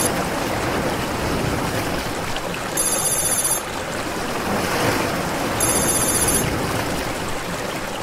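Steady rush of surf breaking on a shoreline, with a high ringing tone like a telephone ringing cutting in twice, in bursts under a second long about three seconds apart.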